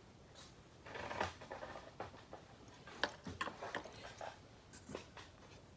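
Handling noise from a 9mm AR pistol being moved about close to the microphone: light rustling and a few sharp clicks, the sharpest about three seconds in.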